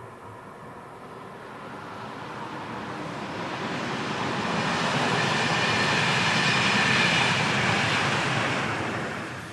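A train passing: the rumble and rail noise build steadily over several seconds, peak, then fall away quickly near the end.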